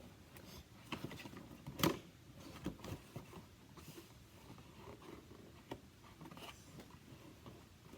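Packaging of a duckling lamp being opened and handled: soft rustling with scattered light taps and clicks, the sharpest a snap a little under two seconds in.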